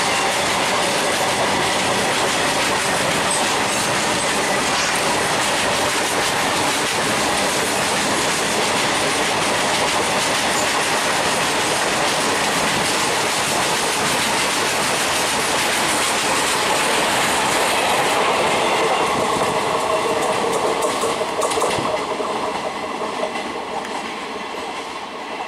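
Loaded open-top freight wagons passing close at speed, a steady rumble and clatter of wheels on rail. The sound falls away about 20 seconds in as the last wagons and the brake van go by and recede.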